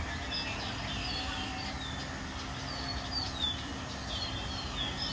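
Small birds chirping outdoors: short, high, falling chirps repeated every second or so, over a steady low background rumble.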